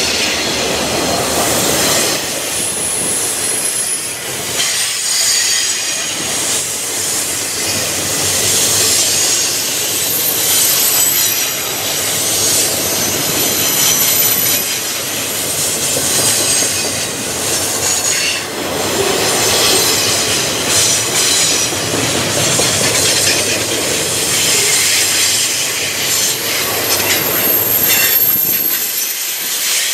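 Rail train's freight cars rolling past close by on a curve: a steady rumble and clatter of steel wheels on rail, with a thin high wheel squeal coming and going several times.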